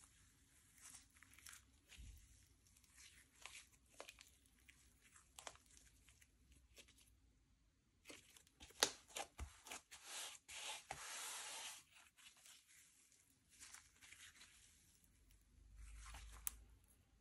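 Slime being kneaded and stretched by hand, giving sticky crackles and little pops, busiest a little past halfway.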